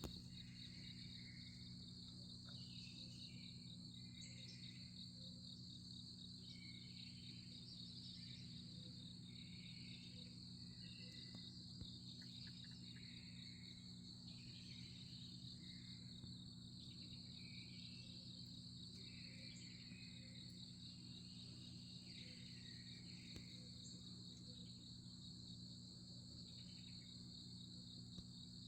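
Faint outdoor ambience dominated by a steady, pulsing insect trill from crickets. Short, faint bird phrases repeat every second or two over a low steady hum.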